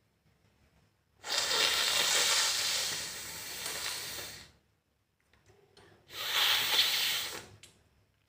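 A person blowing their nose hard twice: a long blow of about three seconds, then a shorter one of under two seconds.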